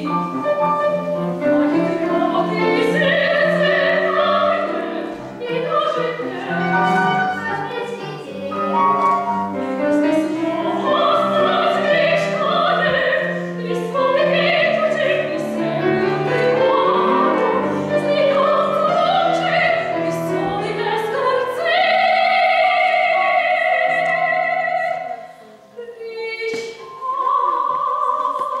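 A female operatic soprano sings with grand piano accompaniment. Near the end she holds one long note, breaks off briefly, then sings a shorter phrase.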